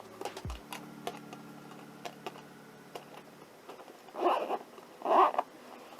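Handling of a small carrying case: scattered light clicks and taps, then two short, louder rasping sounds about four and five seconds in.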